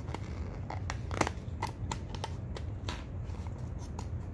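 Rubber RC buggy tire and its foam insert being pushed and worked back onto the wheel by hand: a run of irregular light scrapes, rubs and clicks, the sharpest about a second in.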